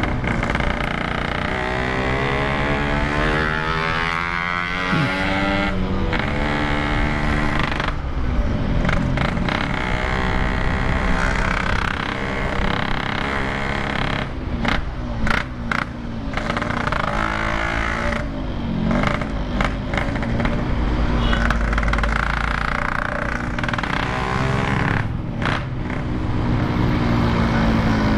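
Yamaha RX-King's two-stroke single-cylinder engine running on the move, its pitch climbing and falling as the rider works the throttle through the gears, with several brief breaks between.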